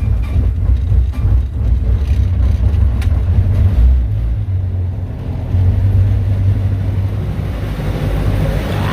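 Bobcat S205 skid-steer's diesel engine running just after a cold start, a steady low clatter. The engine sound sags briefly about five seconds in and then picks up again.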